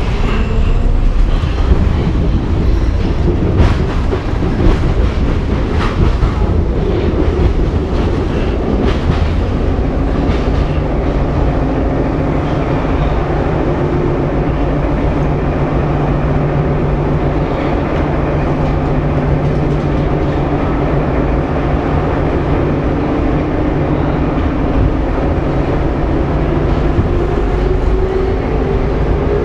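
Budapest Metro line 2 train running, heard from inside the carriage: a steady rumble with wheel clatter and clicks over the track, thickest in the first ten seconds or so. A steady humming tone comes up midway, and the pitch rises near the end.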